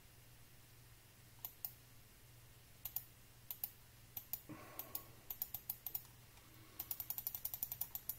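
Sharp clicks of someone working a computer: a few single and paired clicks, then a quick even run of about a dozen near the end, over a low steady hum.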